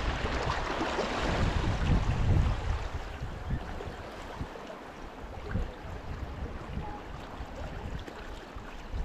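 Wind buffeting the microphone in gusts, heaviest in the first few seconds and easing after, over a faint wash of calm sea water.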